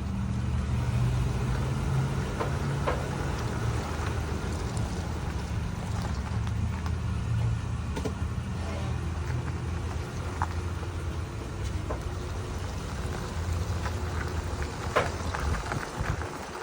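2008 Toyota 4Runner moving, with a steady low engine and road drone and irregular sharp pops from the chassis, the loudest near the end. This is the unexplained popping noise that persists after new control arms, sway bar end links, shocks and springs.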